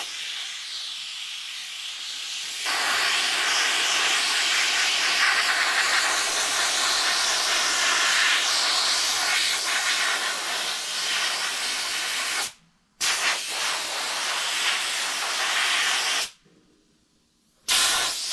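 Pressure-pot sandblaster nozzle blasting abrasive at steel plate, a steady hiss of air and sand. It is thinner for the first two seconds or so, then fuller; it stops briefly about two-thirds through, runs a few more seconds, stops, and a short burst comes at the end.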